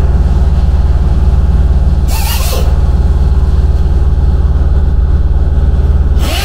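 Steady, loud low machine drone with a fast regular pulse, and a short burst of hiss about two seconds in.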